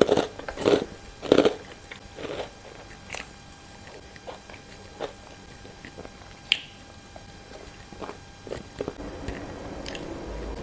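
A person chewing and crunching a mouthful of crisp rice cracker with rice, close to a clip-on microphone. Three loud crunches come in the first second and a half, followed by quieter chewing with small clicks and a sharp click about six and a half seconds in.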